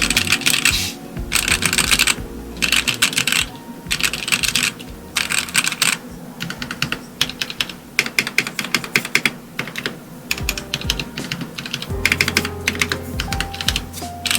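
Typing on a Portico mechanical keyboard fitted with DSA Magic Girl keycaps: bursts of fast keystroke clacks separated by short pauses.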